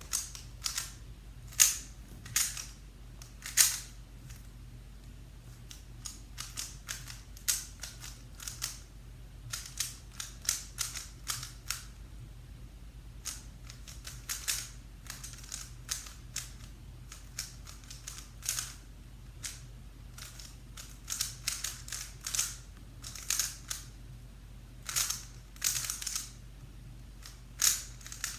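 Puzzle cube being turned fast in the hands during a solve: irregular plastic clicks and clacks of the layers turning, coming in quick flurries with short pauses between.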